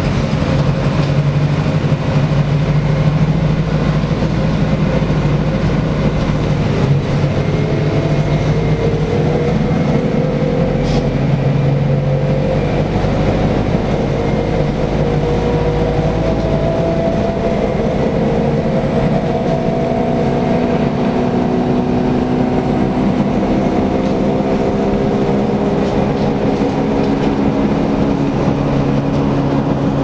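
Bus engine and road noise heard from inside the passenger cabin, a steady loud hum with a whine that climbs gradually in pitch through the first half, then holds steady.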